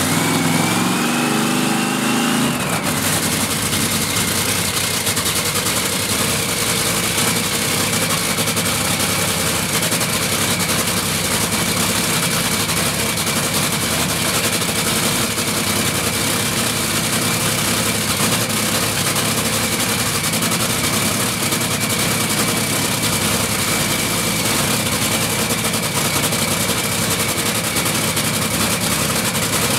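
Top Fuel dragster's supercharged nitromethane Hemi V8 running steadily at idle during a pit warm-up. A high whine rises over the first couple of seconds and then holds steady.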